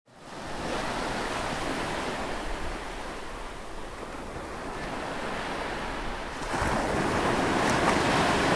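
Ocean waves washing on a shore, fading in at the start, with a louder surge about six and a half seconds in.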